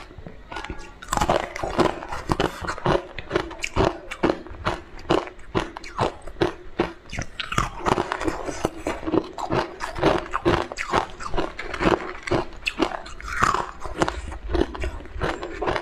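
Close-miked biting and crunching of frozen, icy pieces in the mouth: a run of crisp crunches, several a second, beginning about a second in.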